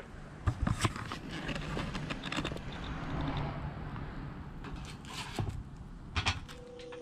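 Fish patties sizzling in hot oil in a frying pan over a burner, with a few sharp clinks of a utensil against the pan about half a second in, near a second, and again past five and six seconds.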